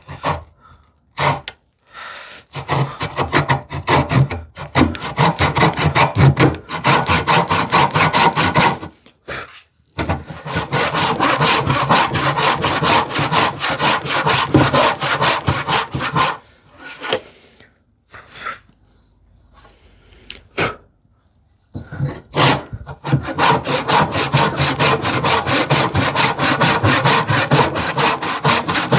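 Freshly sharpened tenon saw ripping down a tenon cheek in wood by hand, in steady back-and-forth strokes. The sawing comes in three runs, with a brief pause about nine seconds in and a longer one a little past the halfway point.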